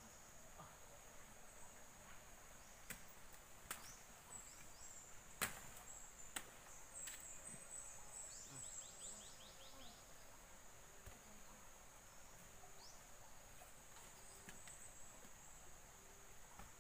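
Faint outdoor ambience: a steady high-pitched insect drone, with a few sharp knocks and some faint chirps.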